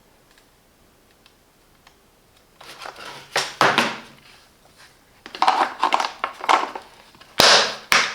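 Hand tools being handled in a plastic tool case: scraping and clattering that start a couple of seconds in, with two sharp knocks near the end.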